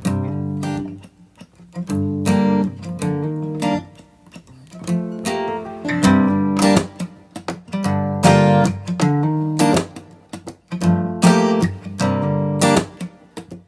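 Acoustic guitar music from the background song: strummed chords in phrases, with short pauses between them.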